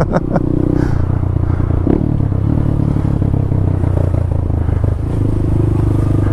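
Honda Grom (MSX125) single-cylinder engine running at fairly steady low revs as the bike filters slowly between queued cars.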